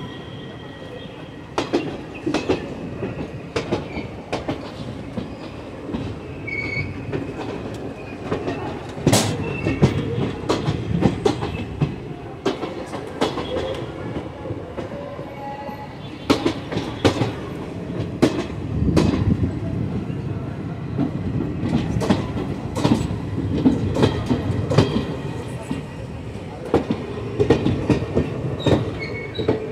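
Indian Railways passenger coaches rolling through a junction's tracks: a steady low rumble of steel wheels on rail, broken by many irregular clicks and clanks as the wheels cross rail joints and points, with a few brief faint wheel squeals.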